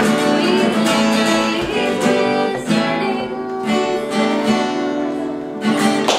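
Acoustic guitar strummed in a live band's song, full chords ringing with a steady strumming pattern.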